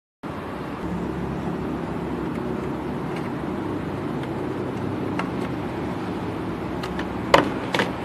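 Steady background noise with a low hum, then two sharp clicks about half a second apart near the end.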